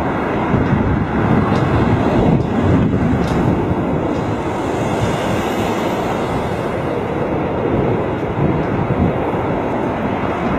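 Strong, gusty wind rushing over the microphone, with an airliner's engines running underneath it during a go-around in high wind.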